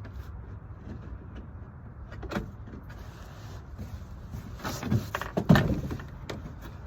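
Plywood subfloor board being shifted and pressed down on a van floor: a single knock about two seconds in, then a short run of knocks and scrapes a little after halfway, over a steady low rumble.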